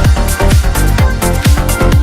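Electronic dance music with a steady four-on-the-floor kick drum, about two beats a second, over sustained synth tones.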